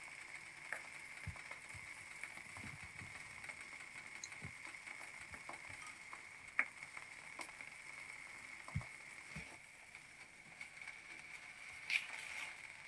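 Faint crackle of eggs cooking in a nonstick frying pan, with scattered soft clicks and a few low knocks as grated cheese is sprinkled over them and a tortilla is pressed on near the end. A faint steady high whine runs underneath.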